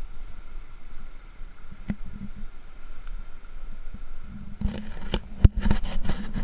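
Low, steady rush of river water, then from about four and a half seconds a quick run of knocks and scrapes, the loudest about a second later, as a hand grips the rock next to the camera.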